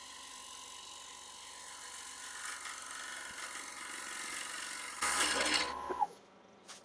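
Gouge cutting the outside of a spinning sycamore heart-shaped bowl blank on a wood lathe: an interrupted cut as the lobes and point of the heart come around, over the lathe's steady motor whine. The cutting grows louder, is loudest for about a second some five seconds in, then the whine drops away as the lathe is switched off.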